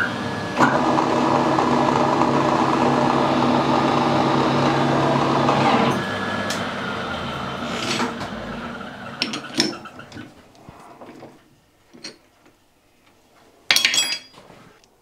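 Metal lathe running under power while a quarter-Whitworth nut held in its chuck is re-threaded to 8 mm with a tool in the tailstock drill chuck; the motor's steady whine cuts off about six seconds in and the lathe runs down. Small handling clicks follow, then a short, loud metallic clatter near the end.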